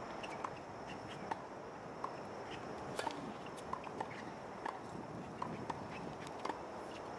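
Tennis balls striking an outdoor hard court and rackets: scattered sharp pops of bounces and hits, with the loudest crack about three seconds in, which fits the racket strike of a serve.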